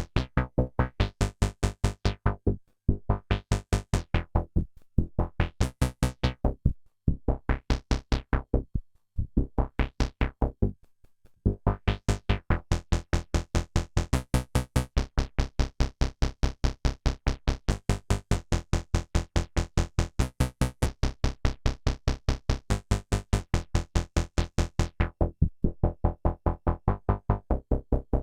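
EDP Wasp monophonic analogue synthesizer playing a rapid, even run of short staccato notes, the pitch pattern shifting every few seconds, with several brief pauses between phrases.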